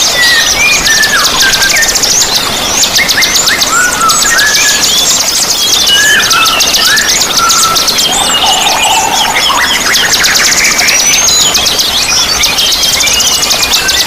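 A chorus of several small songbirds calling and singing at once: a dense, fast high-pitched chatter throughout, with many clearer whistled notes and short rising and falling phrases over it.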